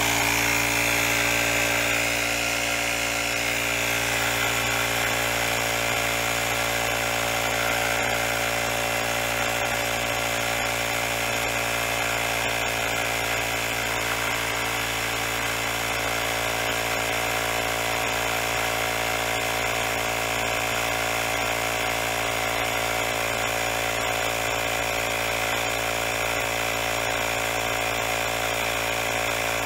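Grepro portable cordless tire inflator's small piston compressor running steadily under load, pumping a tire up from about 36 toward 40 psi.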